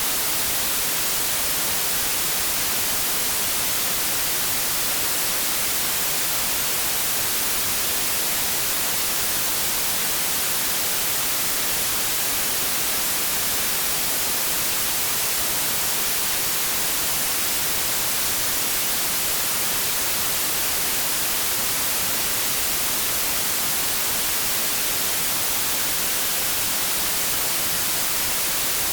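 Continuous white noise static: a steady, even hiss that never changes, bright in the treble and thin in the bass.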